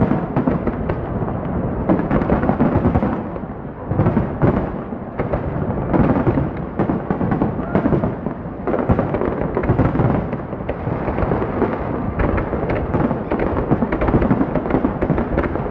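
Dense barrage of aerial firework shells bursting, with bangs overlapping in rapid succession and no pause.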